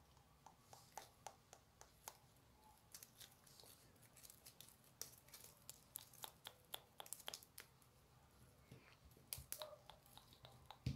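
Slime being stretched, squished between the fingers and pressed onto a tabletop, making faint sticky clicks and pops, several a second at irregular intervals.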